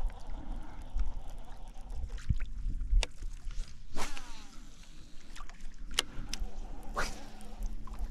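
A cast with a baitcasting rod and reel about four seconds in: a sharp swish and the reel spool whirring, falling in pitch as it slows. Then come a few clicks and handling knocks, and the reel being wound in. All of this is over a steady low rumble of wind on the microphone.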